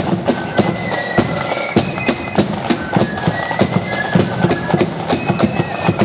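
A marching flute band playing: a high flute melody over fast, continuous drum beats.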